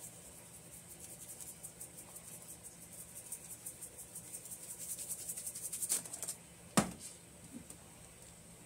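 Seasoning shaker shaken over the meat: a rapid, dry rattle of granules that grows louder and stops about six seconds in, followed by a single sharp knock.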